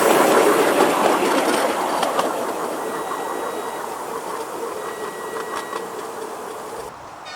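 A 7¼-inch gauge miniature train running past and moving away, its wheels rumbling and clicking over the rail joints, the sound fading steadily. It cuts off abruptly near the end.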